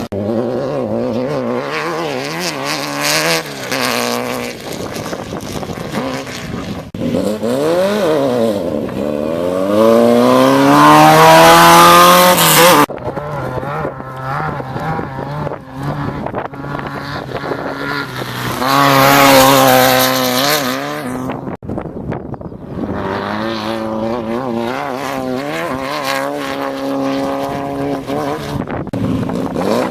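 Off-road desert race cars' engines revving up and down as the cars pass, in a series of short clips. Two passes are loudest, a little before the halfway point and about two-thirds through, and the sound cuts off abruptly between clips several times.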